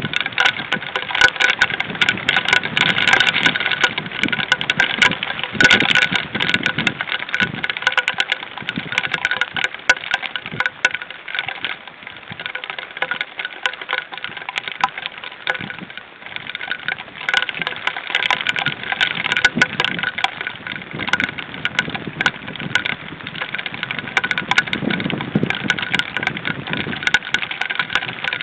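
Heavy rain: a dense, crackling patter of drops with many sharp clicks, louder at first, easing off mid-way and building again.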